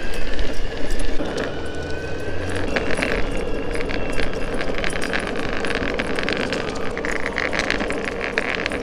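Electric skateboard rolling fast over pavement, its wheels and motors making a steady rolling noise with a thin whine in the first few seconds. Light metallic jangling runs through it, thickening in the second half, from the harness and leash of a dog running alongside.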